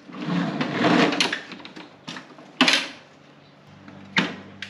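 Husqvarna HU800AWD walk-behind mower being tipped over onto its side: a scraping, rattling shuffle of plastic and metal for about two seconds, then a sharp knock, and a second knock near the end.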